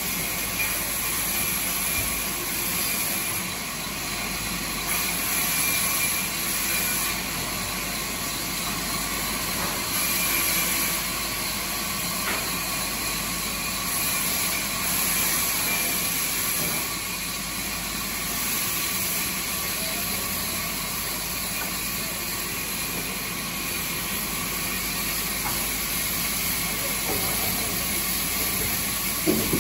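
Band sawmill cutting lengthwise through a large log: a steady machine running with a constant hissing rasp of the blade in the wood. A few sharp knocks come right at the end.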